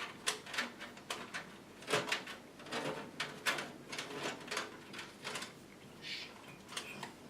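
Irregular clicks, knocks and rattles of hands working inside a desktop PC case, handling and rearranging the power supply cables.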